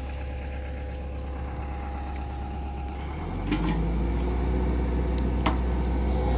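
Hitachi Zaxis 110 excavator's diesel engine running steadily at idle, growing louder and fuller about three seconds in.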